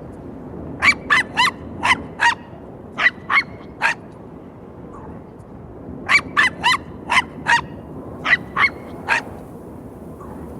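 A series of short, sharp animal calls, about sixteen in four quick groups of three to five, over a steady background hiss.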